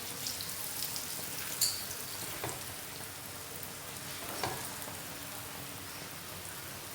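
Lachha paratha frying in ghee on a tawa, just turned over: a steady sizzle with a few small clicks.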